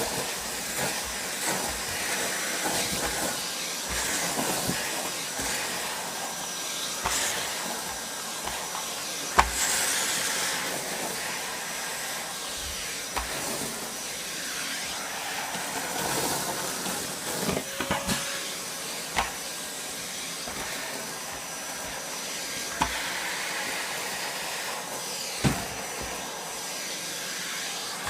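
Numatic Henry Turbo (HVR 204) vacuum cleaner with a UDS motor, running steadily with a hiss and a faint high whine while sucking up shredded paper. Scattered clicks and a few sharp knocks come through it, the loudest about nine seconds in.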